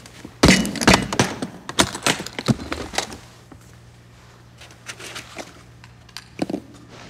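A metal briefcase is set down on a wooden desk with a heavy thunk. A quick run of clicks and knocks follows as its latches are snapped open and the lid is raised. A few softer handling sounds come near the end as the instruments are taken from the case.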